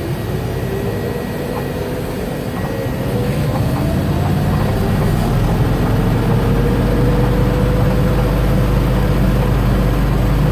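1969 M43B1 military truck's engine and drivetrain running under load in four-wheel drive, second gear high, at a crawl: a steady low drone with a whining tone that climbs in pitch and grows louder a few seconds in, then holds steady.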